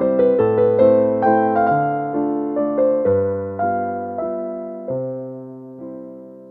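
Background keyboard music: a melody of single notes over low bass notes, each note dying away, growing quieter and ending on a held note near the end.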